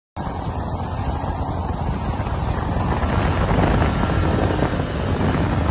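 Snowmobile skimming across open water: its engine running under a steady rush of spray, with wind buffeting the microphone. The sound starts suddenly and holds steady.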